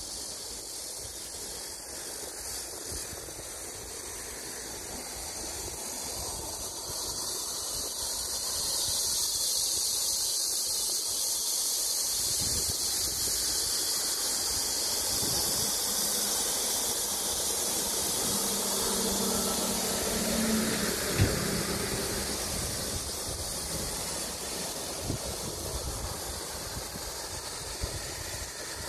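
Road traffic passing, tyre and engine noise swelling and fading, over a steady high hiss; about two-thirds of the way in one vehicle's engine hum stands out, with a short sharp knock just after it.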